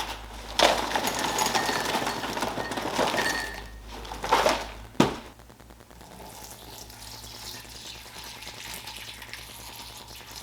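Milk being poured into a bowl of cereal, a steady splashing pour for about three seconds, followed by a sharp knock about five seconds in.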